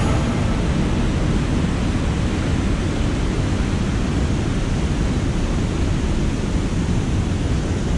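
Steady rushing of water spilling over a low weir and running fast down a creek.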